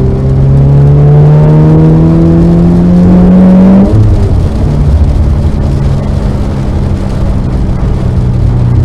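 Car engine on track, rising steadily in pitch under acceleration for nearly four seconds, then dropping suddenly. It then runs on at a steadier, lower pitch.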